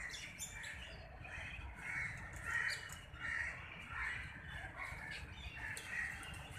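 Crows cawing over and over, short harsh calls about one every half second to second, with a steady low rumble underneath.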